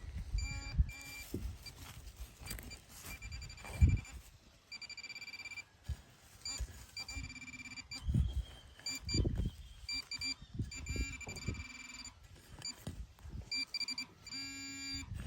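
Metal detector beeping while a target is dug: many short high beeps, at times a lower steady tone, over low thuds and scrapes of digging in soil.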